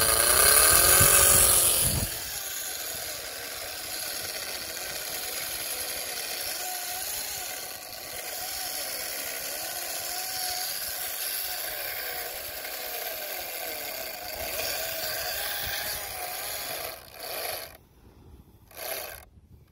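Fishing reel working against a hooked shark: a steady mechanical whir with a wavering tone. It is loudest for the first two seconds, runs on more quietly, and drops out briefly twice near the end.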